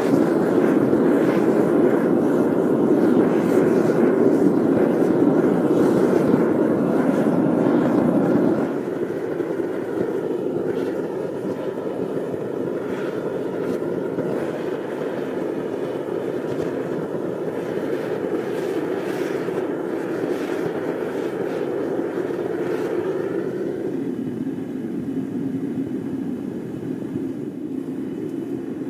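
Propane-fired backyard foundry furnace running: the burner's steady roar while it melts aluminium in the crucible. The roar drops noticeably about nine seconds in and softens a little more near the end.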